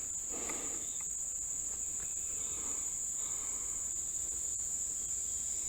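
Steady high-pitched chorus of insects, one unbroken pitch.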